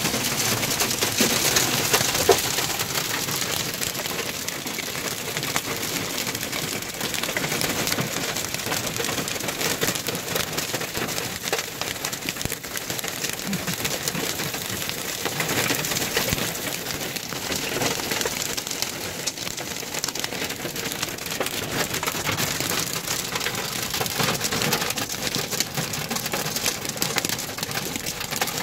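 Heavy storm rain hitting the car's roof and glass, heard from inside the car as a dense, steady spatter of drops. It is a little louder in the first couple of seconds.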